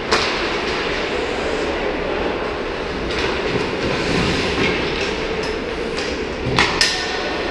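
Ice rink practice sounds: a steady wash of skate blades scraping the ice, with sharp clacks of hockey sticks on pucks, once just after the start and twice in quick succession near the end.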